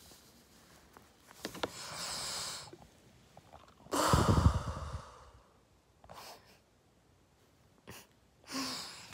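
A person breathes close to the microphone. About four seconds in comes one sudden, forceful breath that blasts the mic and fades over about a second, with quieter breaths before and near the end.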